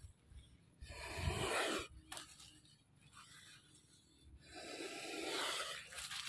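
Cobra hissing inside a mesh bag: two long breathy hisses, one about a second in and a longer one near the end, from an agitated snake that is resisting being handled.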